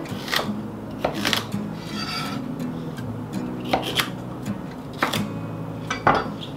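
Chef's knife chopping carrots on a wooden cutting board: sharp, irregular knocks of the blade striking the board, with scraping of the cut pieces, over steady background music.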